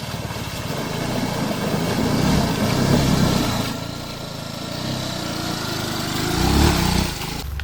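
Motorcycle engine running at low speed in first gear over rough ground, its sound swelling twice as the throttle is opened.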